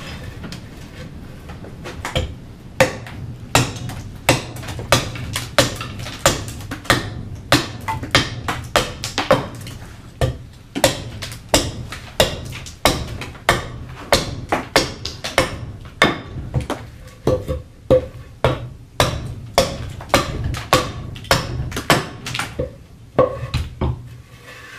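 Carving axe hewing the outside of a green black walnut bowl blank held on a chopping block: a long run of sharp chopping cuts, about two a second, which stops shortly before the end.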